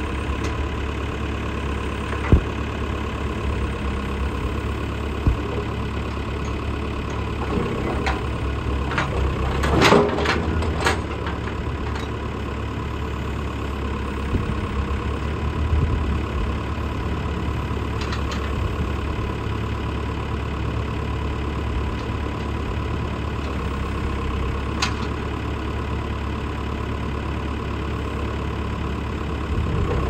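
Perkins diesel engine of a JCB 212S backhoe loader running steadily while the backhoe boom and bucket are worked, with a few sharp knocks and a louder stretch about ten seconds in.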